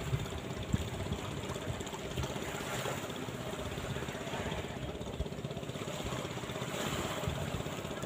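Wind buffeting the microphone over gentle surf on a sandy shore, with a small boat engine running steadily.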